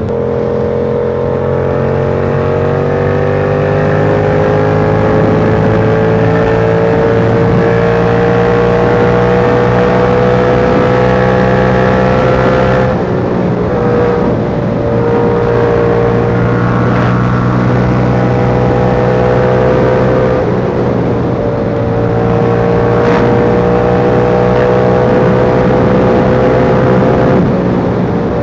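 Yamaha R7 parallel-twin engine through a KO Lightning aftermarket exhaust, ridden on the road. The engine note climbs slowly for about thirteen seconds, dips briefly as the throttle is eased, holds steady, dips again about twenty seconds in, then drops near the end, over a steady rush of wind and road noise.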